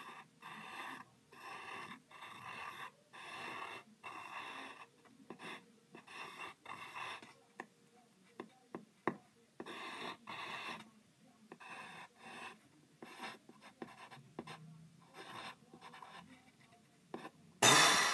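Graphite pencil drawing on paper: a run of short scratchy strokes with brief pauses between them, and a few sharp ticks about halfway through. Near the end comes a loud rush of breath as a long-held breath is let out.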